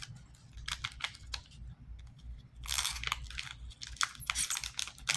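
Trading card pack wrapper crinkling and cards being handled: a run of light clicks and rustles, with a couple of longer crackles in the middle.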